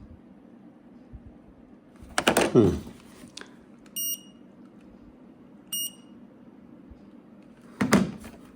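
Two short high beeps about two seconds apart from the EG4 mini split indoor unit, acknowledging button presses on its remote. Under them runs a steady low hum. A louder brief sound with a falling pitch comes about two seconds in, and another short loud sound comes near the end.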